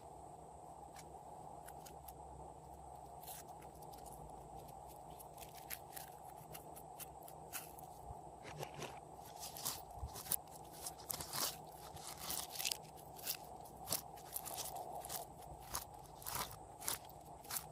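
Glossy slime being kneaded and pressed by hand with add-ins mixed through it, giving sharp clicking, crackling pops: a few at first, then coming often from about halfway on, over a steady background hum.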